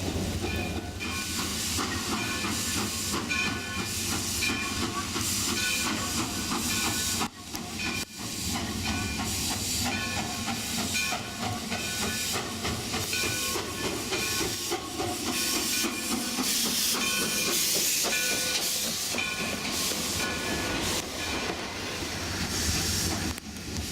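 Alco 2-8-0 Consolidation steam locomotive working, with a loud rushing hiss of steam and short high-pitched tones coming and going over it. The level dips briefly about seven seconds in.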